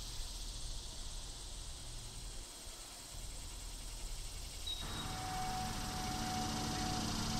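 Faint background ambience: a low rumble under a thin hiss. About five seconds in it changes suddenly to a fuller, slightly louder background noise with a faint steady tone.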